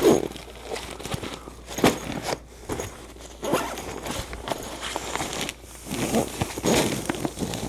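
Irregular knocks, rustles and footsteps of someone rummaging for power cords among cables and bags.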